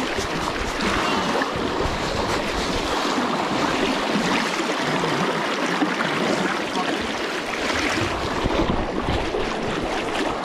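Fast river current rushing steadily, with water churning and splashing close by.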